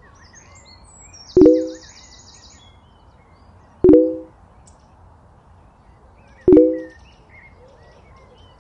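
A sharp click with a short low ringing tone, repeated four times at even intervals of about two and a half seconds. Birds chirp faintly in the background.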